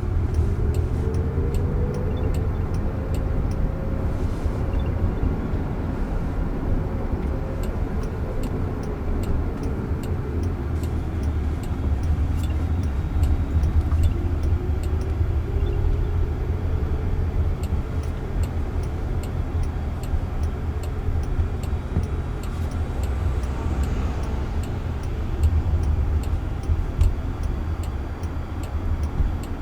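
Road and tyre rumble inside a moving Waymo self-driving car's cabin, with a faint drive whine that rises and falls in pitch twice as the car speeds up and slows down.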